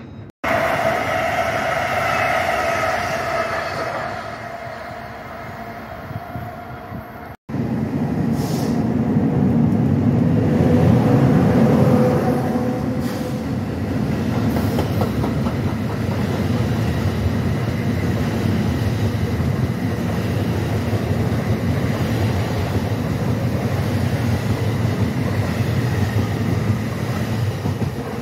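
NJ Transit double-deck commuter train passing close by: a high, many-toned whine for the first several seconds, then a loud, steady rumble of steel wheels on rail as the coaches go past.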